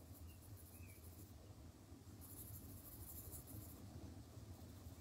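Faint scratching of a Derwent Chromaflow coloured pencil shading on paper, in two stretches, over a low steady hum.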